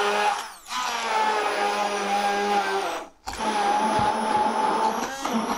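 Tefal stick blender's motor running in a plastic beaker, puréeing banana chunks. It gives a steady whine, broken by two short pauses: one about half a second in and one about three seconds in.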